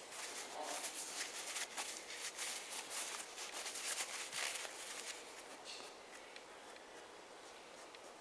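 Crumpled paper towel rustling in the hand and rubbing over a leather sofa arm: a dense, scratchy rustle of many quick strokes for about the first five seconds, then only faint handling sounds.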